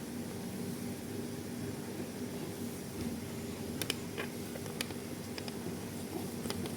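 Steady low hum with a few sharp, light clicks in the second half.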